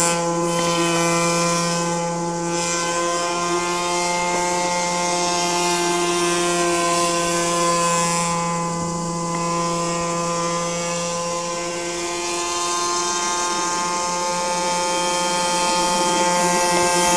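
Dumas radio-controlled model airboat running flat out, its motor and air propeller giving a continuous high, steady buzz. The buzz dips slightly midway and grows louder near the end as the boat comes closer.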